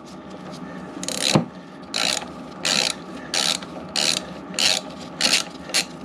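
Socket ratchet clicking as it tightens the pad retaining pin on a scooter's front brake caliper, in short bursts about every 0.7 s, each burst one back-swing of the handle.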